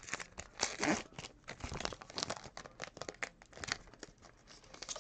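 A 2020 Topps Allen & Ginter hobby pack's wrapper being torn and crinkled open by hand: a run of irregular crackles and rips that thins out near the end.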